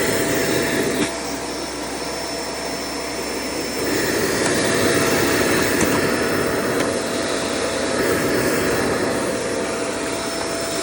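Shark vacuum cleaner running steadily, a steady whine over the rush of air, getting a little louder about four seconds in. It sounds good: running with normal suction after a piece was hooked back on.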